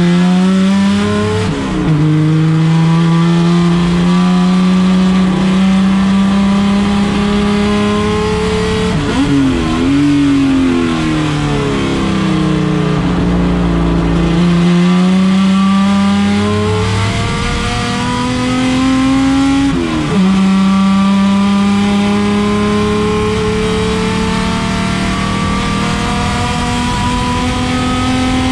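Chevrolet Opala race car's engine running hard. Its pitch climbs and drops back sharply at each gear change, several times over, with a longer slowdown and pick-up near the middle.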